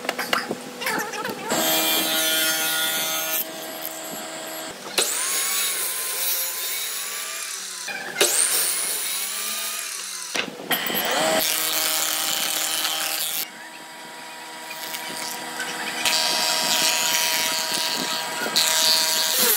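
A run of short woodworking-machine clips: a table saw, a miter saw and a thickness planer running and cutting or planing boards, each clip starting and stopping abruptly. In some, a motor whine rises and falls as a blade spins up and winds down.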